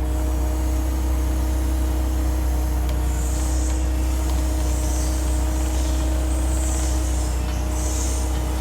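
Forklift engine idling steadily while it holds the load. From about three seconds in come five short hisses.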